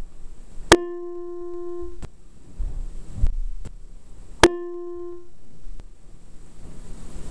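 Electronic keyboard sounding the same single note twice, about four seconds apart, each struck sharply and held for under a second, as an imitation of a Schindler elevator chime. Faint clicks and low thuds fall between the notes.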